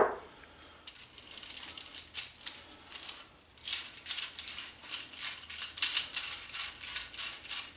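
Small metal parts and hand tools clinking and rattling as they are handled on a workbench: a string of light, quick clicks and taps that grows busier about halfway through.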